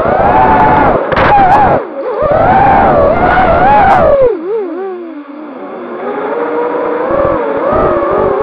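FPV racing quadcopter's brushless motors (RMRC 2204 2300kv spinning DAL tri-blade props) whining loudly, the pitch swinging up and down with the throttle through dives and turns, warbling and dropping briefly around the middle. Wind buffets the onboard camera's microphone in stretches.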